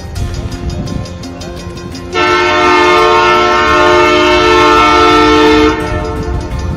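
An approaching train sounds its horn: one long, loud chord of several steady tones, starting about two seconds in and lasting about three and a half seconds, over a low rumble.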